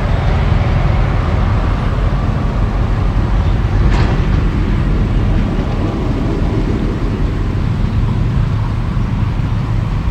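Heavy construction machinery running: the steady low rumble of the excavator's and dump truck's diesel engines, with one sharp knock about four seconds in.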